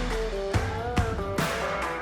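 Background music: an instrumental track with guitar, a melody and a steady beat.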